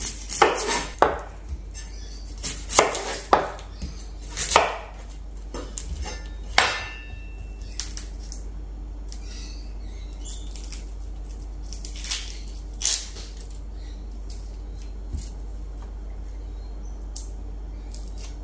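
A chef's knife cutting through a red onion onto a plastic cutting board: a run of sharp knocks in the first seven seconds or so, then only a few scattered small clicks while the onion is peeled by hand.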